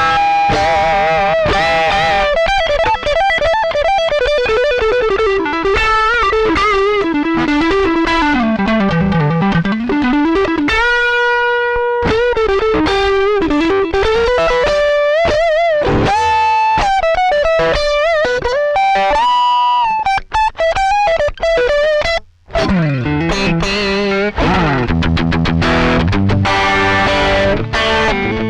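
Overdriven electric guitar playing a single-note lead melody with slides, held notes and vibrato. A brief break comes about two thirds of the way through, then it moves to denser chord and riff playing.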